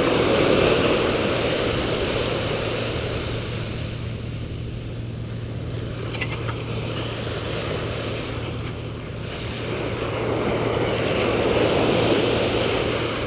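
Surf washing up the beach at the water's edge: a steady rushing that swells at the start and again about ten seconds in as waves come in and recede.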